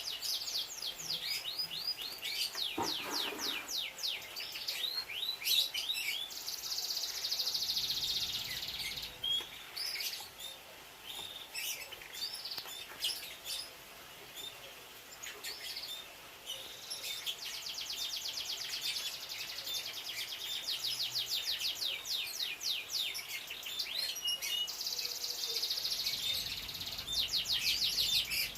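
Domestic canary singing: rapid high trills and rolls of quickly repeated notes, with a sparser stretch of single chirps in the middle before another long trill.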